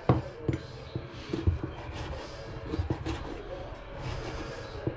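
Kitchen clatter during breakfast cooking: several sharp knocks and clinks of cookware and utensils being handled, over a low steady hum.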